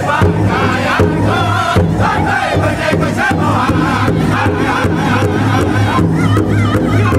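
Powwow drum group singing loudly in unison in high voices over a large hide drum struck together with drumsticks in a steady, even beat, with women singing along behind the drummers.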